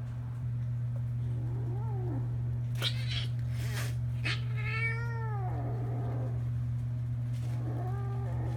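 A kitten meowing: a short call about two seconds in, a longer call that rises and then falls about four seconds in, and another near the end. Two brief noisy bursts come just before the long call, and a steady low hum runs underneath.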